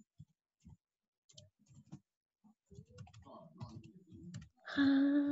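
Faint, irregular key clicks of typing on a computer keyboard. Near the end a person's voice holds one steady note for about a second.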